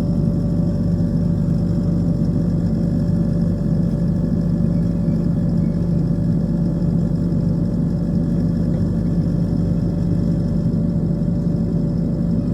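Skid steer engine running steadily at an even speed.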